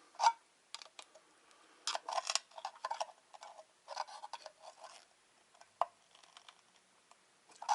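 Irregular light metallic clicks and clinks from the metal and aluminium parts of a disassembled viscous fan clutch being handled and worked on, some in quick little clusters.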